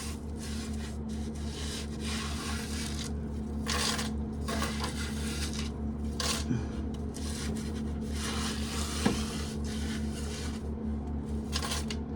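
A corn sheller running with a steady hum, under irregular rasping and scraping of shelled corn and cobs, with a sharp knock about nine seconds in.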